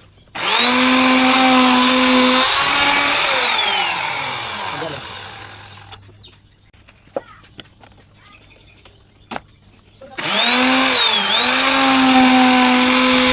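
Electric power saw cutting wood: the motor switches on with a steady whine, dips briefly under load, then is switched off and winds down over about three seconds. A few light clicks follow, and about ten seconds in the motor starts again and dips briefly as it bites into the wood.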